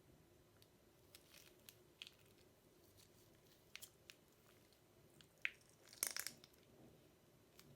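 Crunchy slime being handled and mixed, giving scattered faint crackles and pops, with a louder crunchy burst about six seconds in.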